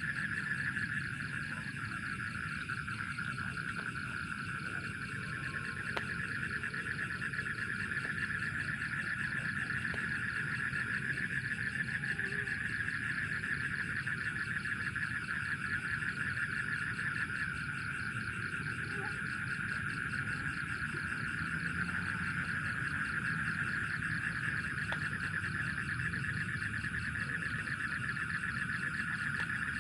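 Steady night chorus of insects such as crickets, a continuous fast-pulsing trill that holds unchanged throughout, over a low background rumble.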